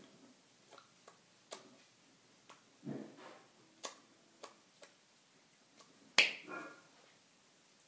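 Scattered soft clicks and taps from the hands and mouth of someone signing in sign language, with one sharper, louder snap about six seconds in.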